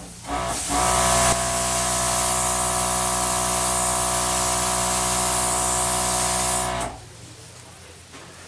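Air gun blowing a steady stream of air: a loud hiss over a steady motor hum. It starts about half a second in, grows a little louder a moment later, and cuts off about seven seconds in.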